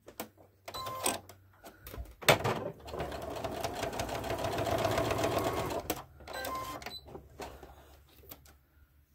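Electric sewing machine stitching a short quarter-inch seam through pieces of quilting fabric, running steadily for about three and a half seconds, with scattered clicks of handling the machine before and after.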